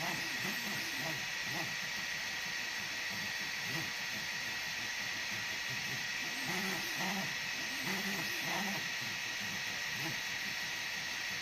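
EasyThreed K10 mini 3D printer at work: its stepper motors whir in short, quickly rising and falling tones as the print head and bed move back and forth, over a steady fan hiss with a high whine.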